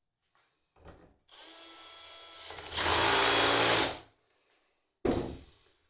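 Cordless drill-driver running, first at low speed for about a second and a half, then at full speed for about a second before it stops. A short knock near the end.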